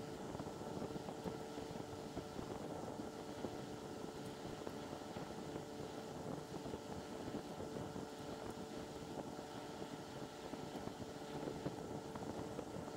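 Faint, steady room hum with a constant mid-pitched tone, like a fan or other machine running, and no distinct tool sounds.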